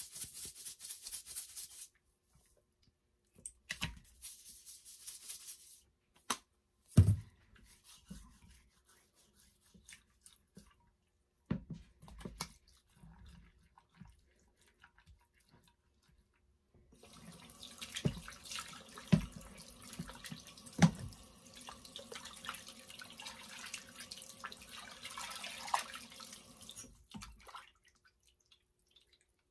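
Salt shaken from a container onto raw salmon, a rattling hiss that stops about two seconds in. A few knocks follow, one sharp thump the loudest. Then, for about ten seconds, water splashing and dripping in a glass baking dish in a sink as the salmon fillet is rinsed and handled.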